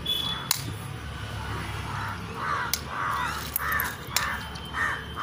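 A crow cawing about six times in quick succession, starting about two seconds in. A few sharp plastic clicks come from the selfie-stick tripod being handled.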